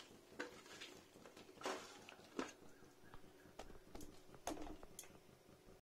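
Hands working small raw fish with salt and turmeric in a steel plate: faint, scattered short squelches and light clicks.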